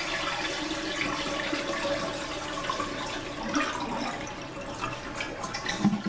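Toilet flushing: water rushing out of the tank through the flush valve past the lifted flapper as the tank drains.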